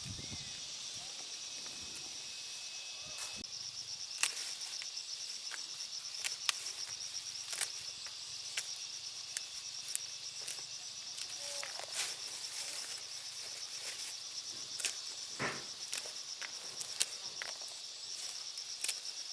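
Insects trilling in a steady, high-pitched, finely pulsing chorus that starts a few seconds in, with scattered sharp clicks and snaps over it.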